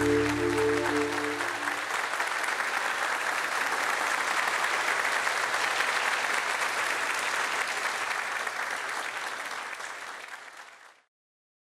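Audience applauding. The last held chord of the dance music ends about a second and a half in, and the applause fades out near the end.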